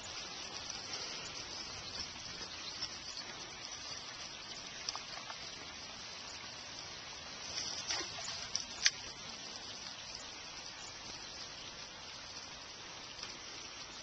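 Steady hiss of light rain falling, with many tiny ticks throughout, and a few short clicks about eight to nine seconds in, the last one sharp.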